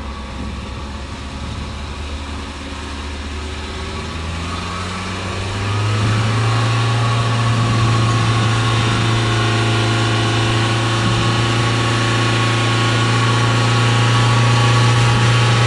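Vehicle engine running under load in mud. About five and a half seconds in it revs up, louder and higher in pitch, and then holds there steadily while the wheels spin and fling mud, the tyre tread clogged with mud.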